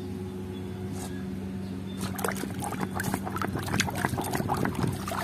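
A hand swishing and splashing through a tub of muddy water, washing plastic toys. The sloshing is light at first and turns into busy small splashes from about two seconds in.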